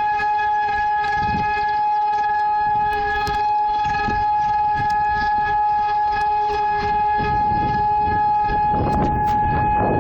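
Warning siren blaring one unbroken steady tone that neither rises nor falls, with a fainter lower tone beneath it. A patch of low rumbling noise joins it near the end.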